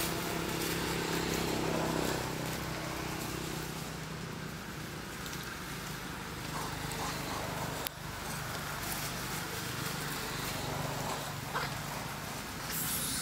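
A motor vehicle's engine running steadily as a low hum, strongest in the first few seconds and then easing off, over outdoor background noise.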